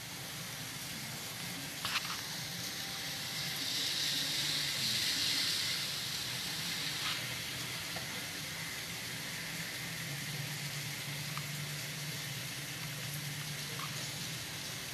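Heavy rain pouring down, a steady hiss heard from behind a window, swelling louder for a few seconds around the middle. A single sharp tick sounds about two seconds in.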